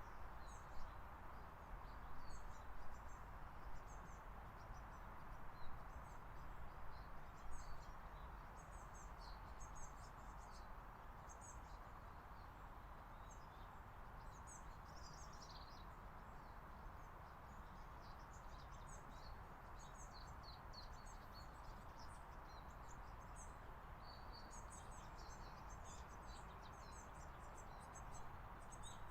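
Faint, scattered chirps of small songbirds over a steady background hiss, with the chirps thickest near the end.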